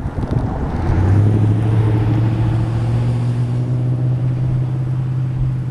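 A motor vehicle engine running steadily with a low, even hum that holds one pitch, growing louder about a second in.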